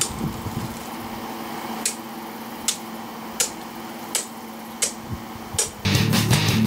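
Machete chopping through the rib cage of a hanging feral hog carcass: six sharp strikes about three-quarters of a second apart. Near the end, rock music with electric guitar starts.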